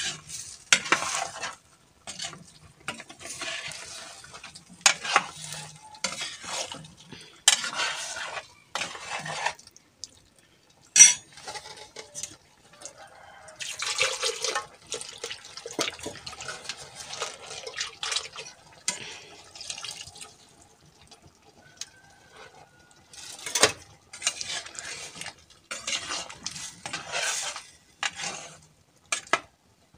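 Metal spoon stirring and scraping through cooked egg and flor de izote in a pot, working in a thick salsa. The scrapes come in irregular bursts, with a couple of sharp clinks against the pot.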